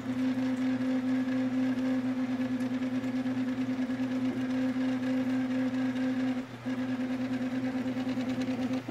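Sintron 3D printer's stepper motors running with a steady whine, breaking off briefly about two-thirds of the way through and then resuming, over a constant low hum.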